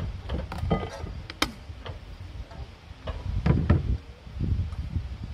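Scattered clicks and knocks from handling a portable camping stove, one sharp click standing out, over a low wind rumble on the microphone.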